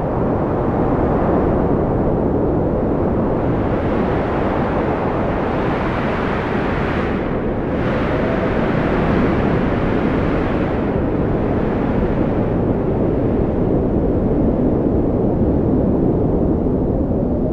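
Strong wind blowing steadily, a deep rushing with a faint whistling tone that rises and falls a couple of times.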